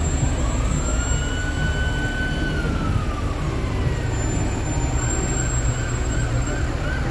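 Emergency vehicle siren sounding one slow wail that rises, holds and falls, then switching to a fast yelp of about three chirps a second near the end, over a steady low rumble.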